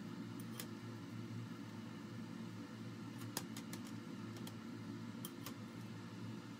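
Spatula tapping and scraping against a non-stick frying pan while folding an omelette, giving a few light clicks, the sharpest about three and a half seconds in, over a steady low hum.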